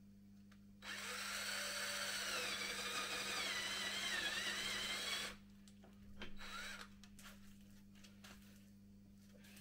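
Electric drill boring a hole into a wooden window frame. The motor whines for about four and a half seconds, its pitch sagging under load partway through, then stops suddenly. A brief second burst follows about a second later.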